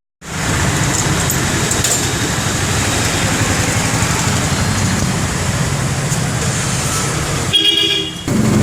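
Steady road traffic noise with a low engine rumble, and a brief horn toot near the end.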